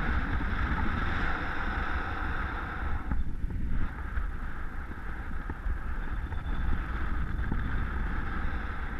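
Airflow rushing over the microphone of a paraglider pilot's camera in flight: a steady wind hiss over a low rumble, the hiss dipping briefly about three seconds in.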